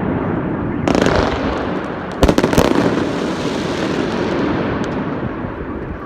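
Many firework salvos going off at once: continuous crackling and banging, with a burst about a second in and a cluster of sharp, loud bangs about two seconds in, then slowly dying down.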